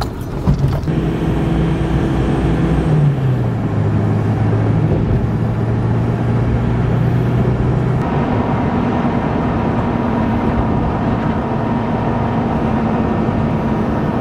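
Pickup truck engine and tyre noise heard from inside the cab while driving at speed: a steady low hum over road noise. The hum changes pitch about three seconds in and again about eight seconds in.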